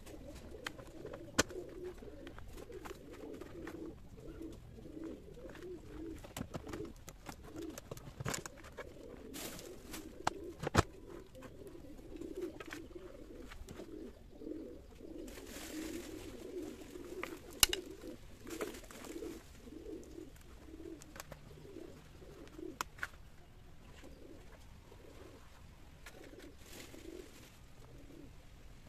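Doves cooing over and over in the background, a steady run of low pulsing coos. A few sharp clicks and taps stand out over it as the tree is worked in its plastic pot.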